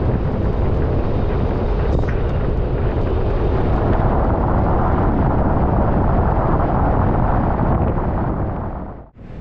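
Wind buffeting the microphone: a loud, steady rumbling rush, heaviest at low pitch, that cuts out sharply for a moment near the end.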